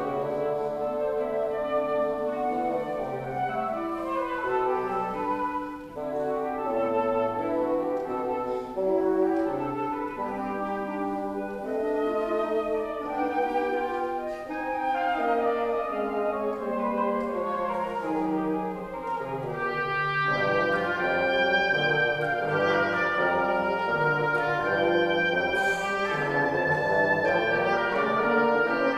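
Wind quintet of flute, oboe, clarinet, horn and bassoon playing classical chamber music, several lines weaving together. The upper parts grow fuller and a little louder about two-thirds of the way through.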